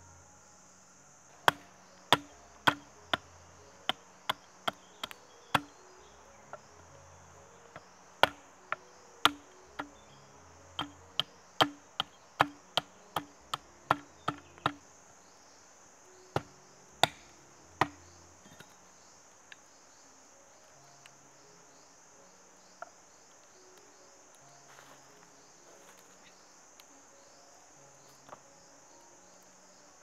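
Small hatchet chopping and shaving a strip of bamboo against a wooden log: a run of sharp knocks, often about two a second, stopping a little past halfway. A steady high insect drone runs underneath.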